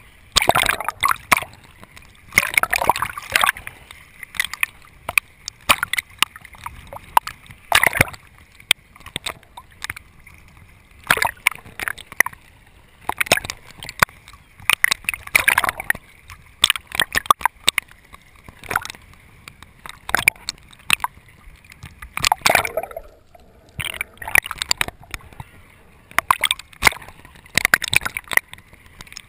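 Water sloshing, gurgling and splashing around a GoPro's waterproof housing as it bobs in and out of the surface, in irregular bursts with sharp clicks.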